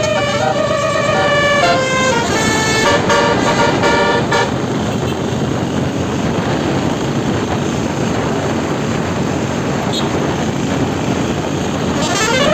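Basuri 12-note 'telolet' bus horn playing a tune of stepping notes for about the first four seconds, then a steady rushing noise with no tune. Near the end the horn starts again with a wavering, siren-like call that swings up and down.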